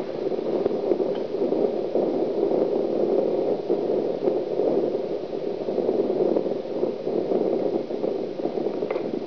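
Steady rushing noise with no voices or music, its energy sitting low to mid in pitch and fluctuating slightly.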